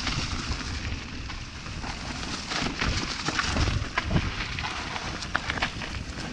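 Riding a mountain bike: wind buffets the action camera's microphone in a low rumble, over a constant crackle of tyres crunching and clattering on rough, stony ground.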